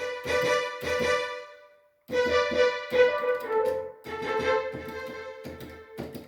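Yamaha PSR-530 electronic keyboard playing a melody on one of its preset voices, in two short phrases with a brief pause about two seconds in; the notes stop shortly before the end.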